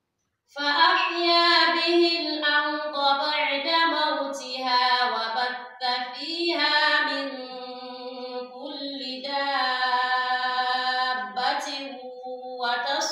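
A woman reciting the Quran in melodic, chanted Arabic (tajweed), with long held notes that glide between pitches. She begins about half a second in after a pause and takes short breaks between phrases.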